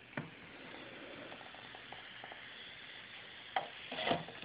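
Metal alcohol burner tray being handled and slid into a small boiler's firebox: a sharp metal click just after the start, a faint steady hiss, then a clatter of metal knocks and scrapes near the end as the burner goes in.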